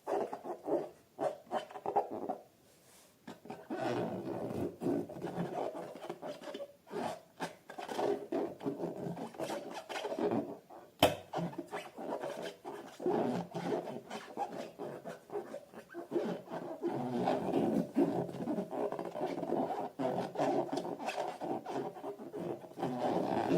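Slime being squished and stretched: irregular sticky squelching with crackling little pops, and one sharp snap about eleven seconds in.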